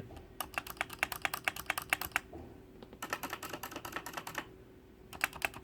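Fast typing on a Royal Kludge RK Sink104Pro mechanical keyboard with red switches, a quick run of key clicks in three bursts with short pauses between them.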